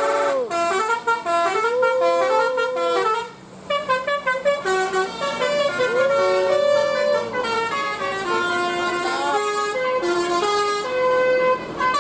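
Bus 'telolet basuri' musical horn playing a melody: a quick run of short stepped notes, broken by a few longer notes that swoop up in pitch and fall away.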